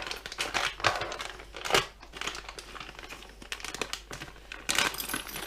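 Plastic packaging crinkling and rustling as it is handled, with a few sharper crackles, while new model-truck wheels are unpacked.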